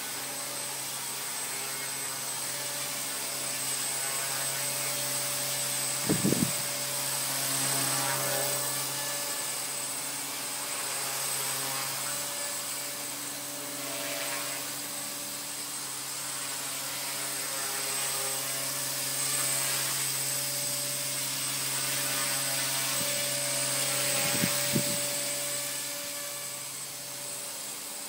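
Align T-Rex 250 electric RC helicopter flying: a steady motor whine and rotor hum that swells and fades as it moves. Two brief low thumps, about six seconds in and near the end.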